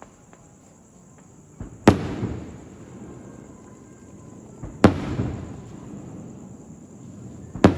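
Fireworks going off: three loud bangs about three seconds apart, each just after a smaller pop and followed by a short rumbling echo.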